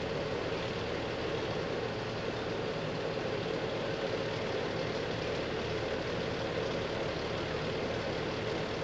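Fire engine idling: a steady, unchanging engine rumble with a constant hum above it.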